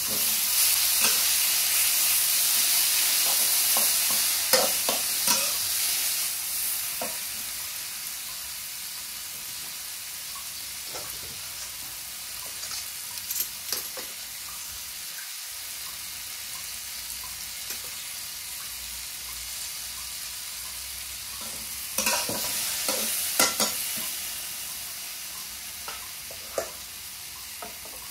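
Tomato wedges sizzling in a metal wok, with a metal spatula scraping and clattering against the pan as they are stirred. The sizzle is loudest for the first several seconds, then settles lower, and there is a spell of brisk scraping near the end.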